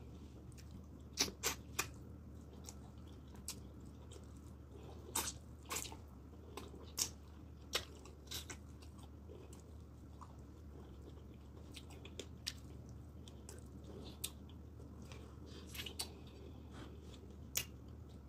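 Close-up mouth sounds of a person eating Nigerian vegetable soup with meat and fufu by hand: chewing with sharp smacking clicks that come in scattered clusters, over a faint steady low hum.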